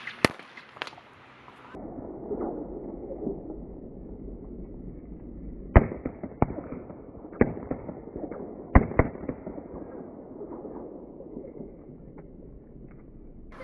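Firecrackers going off in thick smoke: sharp cracks near the start, then a steady crackling hiss punctuated by several loud pops a little past the middle.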